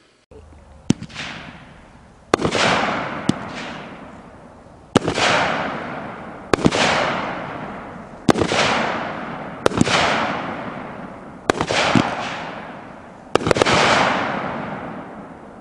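A 200-gram 9-shot consumer firework cake firing its shots in sequence roughly every two seconds, each a sharp bang followed by a long fading sizzle as the gold brocade bursts with red and white strobing tips fall away.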